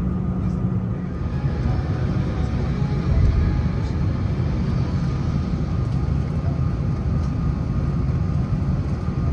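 Steady low rumble inside an Airbus A330-900neo's passenger cabin during pushback, with a faint steady whine above it and a brief swell about three seconds in.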